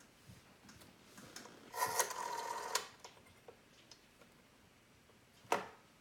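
Rotary telephone dial being turned and let go: the dial spins back with a buzzing whirr of about a second that stops on a click. Light ticks of fingers on the dial come before it, and a single sharp click sounds near the end.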